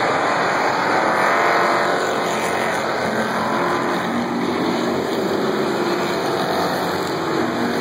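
A field of dirt-track race cars running at racing speed, many engines blending into a loud, steady din whose pitches rise and fall as cars pass.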